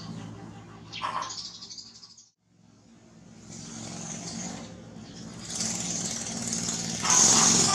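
A steady engine hum under a rush of noise that builds and is loudest near the end, with a short gap about two seconds in.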